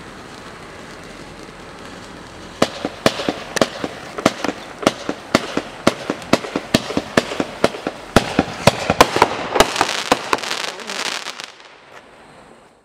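Dominator July's Surprise fountain-to-aerial hybrid firework: a steady fountain hiss, then from about two and a half seconds in a string of sharp bangs, about two a second, as it fires its aerial shots. These build into a dense volley of crackling breaks near the end before stopping.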